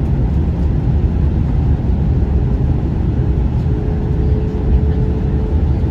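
Steady low rumble of an airliner's cabin noise, engine and air noise heard from inside the plane. A faint thin steady tone joins about two seconds in and fades shortly before the end.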